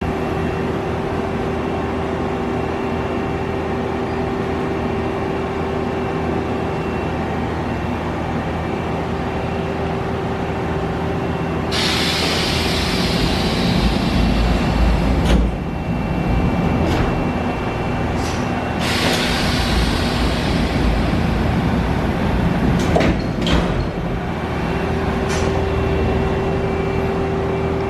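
Steady hum of running machinery with a constant tone. About twelve seconds in, a loud hiss starts and dies away after a few seconds, then comes again a few seconds later, with a few sharp clicks and knocks among it.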